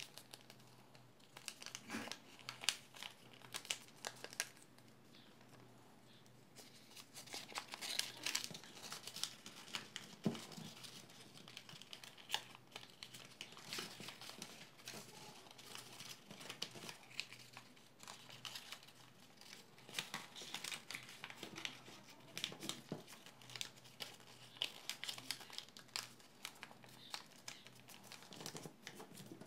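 A sheet of chart paper being folded and creased by hand: irregular crinkling and rustling with sharp crackles as the folds are pressed, easing off briefly a few seconds in.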